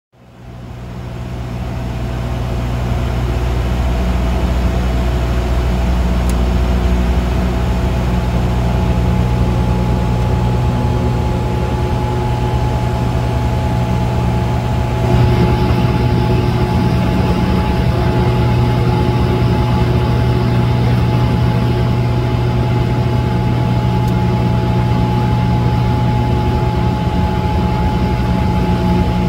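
Steady drone of a de Havilland Canada Dash 8-100's twin turboprop engines and propellers, heard inside the cockpit in flight: a low propeller hum with several steady tones above it. It fades in over the first couple of seconds, and the hiss grows a little brighter about halfway through.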